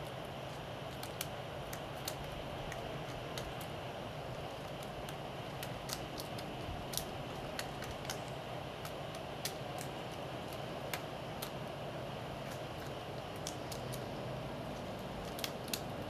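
Pileated woodpecker pecking at pine bark while foraging: sharp single taps at an uneven pace, about one every half second to second, not a drumming roll, over steady background noise.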